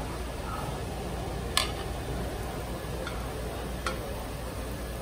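Metal tongs clicking against a grill plate as pumpkin slices are laid down: a few sharp ticks, the loudest about a second and a half in, over a steady background hum.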